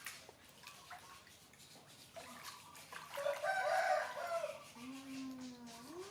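A loud, drawn-out animal call lasting about a second, a little past the middle, followed by a lower, quieter held tone that rises at the end.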